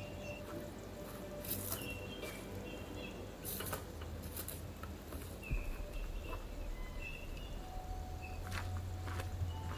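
Birds chirping in short high calls, with a few scattered sharp taps over a steady low rumble.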